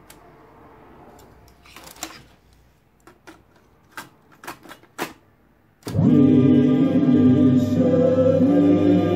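Clicks and clunks of a WEGA PSS 100U cassette receiver's piano-key transport and cassette door as a cassette is loaded. About six seconds in a key clunks down and loud music starts playing from the tape.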